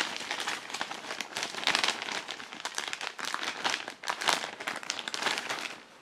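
Thin clear plastic bag crinkling and rustling in irregular crackles as hands open it and pull a booklet out.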